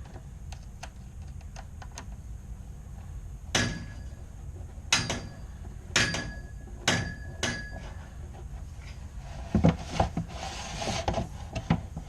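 Sharp knocks, a few with a brief metallic ring, about five over a few seconds, then rubbing and scraping near the end: a dryer vent cleaning brush on its rods being worked through a clogged dryer vent duct.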